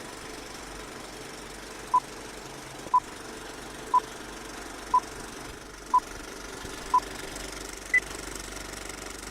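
Electronic countdown beeps: six short beeps one second apart at one pitch, then a single higher beep, over a steady background hiss and hum.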